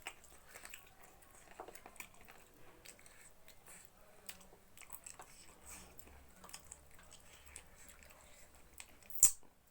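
Close-up chewing and biting of pork trotters eaten by hand: scattered small wet clicks and smacks. A single sharp click about nine seconds in is the loudest sound.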